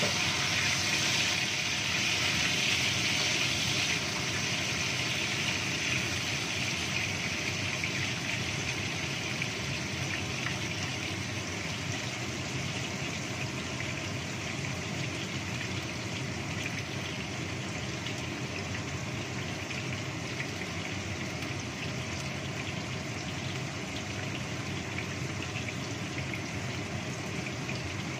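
A kitchen extractor hood's fan running steadily, with tofu cubes sizzling in hot oil in a wok. The sizzle is strongest for the first few seconds and then settles to a lower, even hiss.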